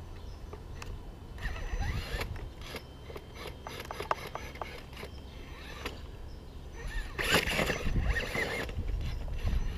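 Axial RR10 Bomber rock crawler's Tekin brushless motor and geared drivetrain whining in short throttle bursts as it climbs a wooden ramp, with clicks and knocks of the tyres and chassis on the boards. The longest and loudest burst comes about seven seconds in, its whine rising and falling in pitch.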